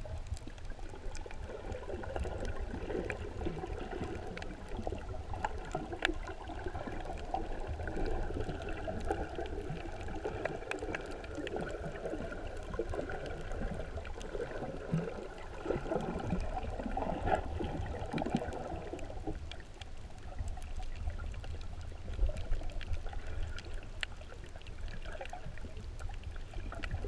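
Muffled underwater water noise picked up by a camera held below the surface: a steady low rumble with gurgling, sloshing movement that swells and fades, and occasional faint clicks.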